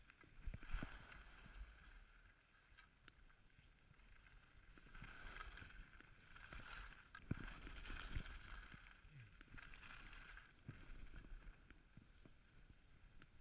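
Faint scrape of skis carving over hard-packed snow, swelling and fading every second or two with each turn, with a low rumble and a few soft knocks underneath.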